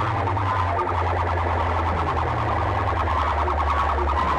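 Loud competition sound track played through banks of horn loudspeakers: a siren-like warbling tone over a sustained bass, with a falling bass sweep about every two seconds.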